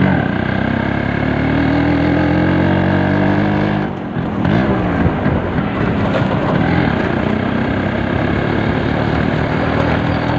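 Yamaha RX135's two-stroke single-cylinder engine under way, revs climbing. The engine note dips briefly about four seconds in, then climbs again.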